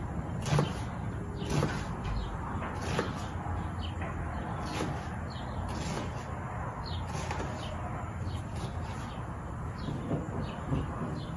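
Kitchen knife cutting through a red onion, the blade knocking on the board beneath about once every second or so, at an uneven pace.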